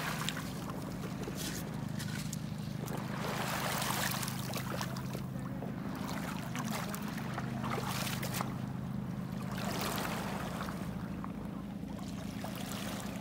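Small waves washing in and out over a pebble beach, swelling twice, with stones clicking and clattering, over a steady low hum.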